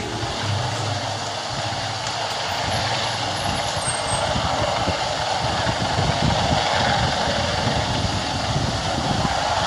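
AW-159 Wildcat helicopter flying past, a steady rush of rotor and engine noise.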